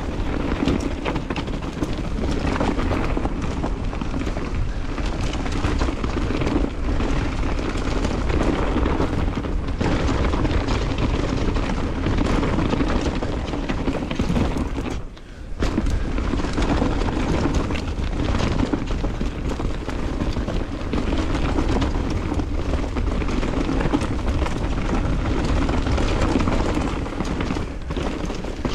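Mountain bike riding down a dirt trail: wind rumbling on the camera microphone over tyre noise and constant clattering of the bike's chain and frame. The sound briefly drops away about halfway through.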